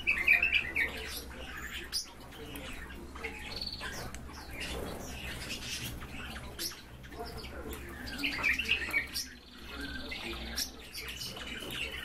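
Small birds chirping in quick bursts, near the start and again about eight seconds in, with a thin high trill starting near the end. Light sharp clicks and taps come in between.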